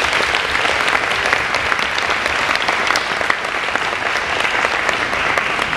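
Audience applauding, a steady mass of hand claps.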